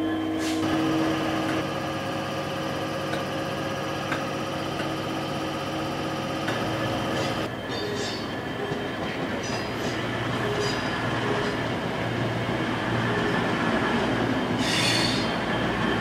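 Diesel locomotive engine running as the locomotive moves slowly along the tracks, with a steady hum whose tones change about seven and a half seconds in. Short high squeals from the wheels come around eight to eleven seconds in, and a brief hiss comes near the end.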